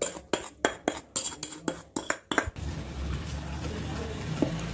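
Wire whisk clinking rapidly against a steel mixing bowl, about six strikes a second, while beating eggs with powdered sugar. The clinking stops about two and a half seconds in, leaving a steady low hum.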